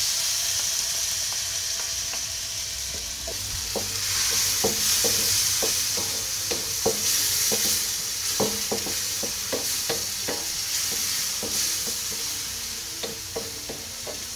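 Chicken pieces sizzling in a hot wok with the stir-fry sauce just added, while a wooden spatula stirs and scrapes against the wok in short repeated strokes. The sizzle grows louder about four seconds in.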